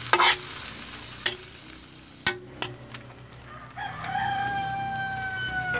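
Metal spatula stirring vegetables in a wok, with a few sharp clinks against the pan in the first three seconds over a faint sizzle. About four seconds in a rooster crows once, one long call of about two seconds.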